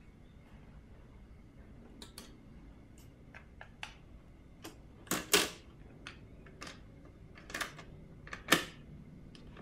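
Clicks and clunks of a Nakamichi 600 II cassette deck being worked by hand: its piano-key transport buttons pressed and its cassette door opened and shut as a tape is loaded. A dozen or so sharp clicks, with two louder clunks about five seconds in and near the end.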